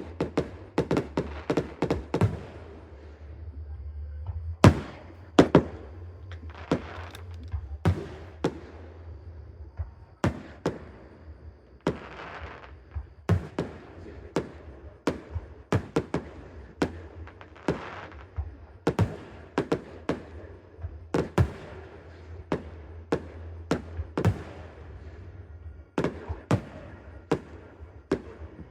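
Fireworks bursting overhead: a run of sharp bangs, some in quick clusters and some followed by crackle, with a steady low hum underneath.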